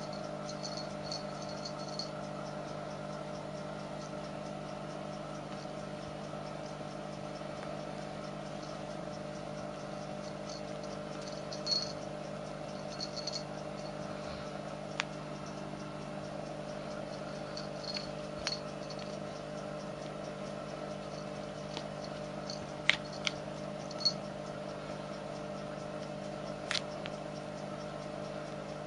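Sporadic small rattles and sharp clicks as a kitten paws at a plush toy, over a steady background hum; a few louder clicks come about two-thirds of the way in.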